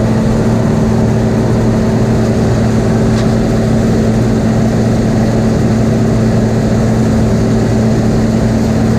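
Combine harvester's engine running steadily at constant speed, a continuous low hum with no change in pitch.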